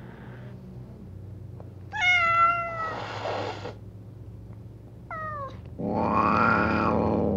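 Domestic cat meowing. One meow falls in pitch about two seconds in and ends breathy, a short high meow comes about five seconds in, and a longer, louder, rough-sounding call runs near the end, all over a steady low hum.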